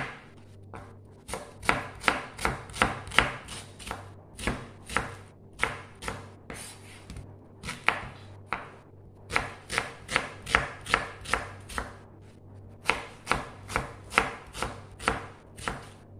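Chef's knife chopping a white onion on a wooden cutting board: a series of sharp knocks, about three a second, in runs broken by short pauses.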